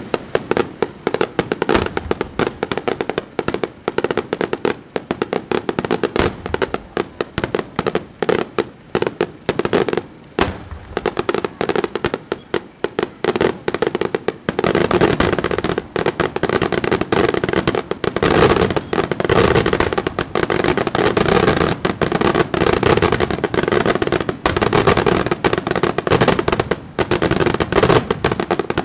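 Bruscella Fireworks aerial display: a rapid barrage of shell bursts and crackling explosions, becoming denser and louder from about halfway into an almost unbroken volley.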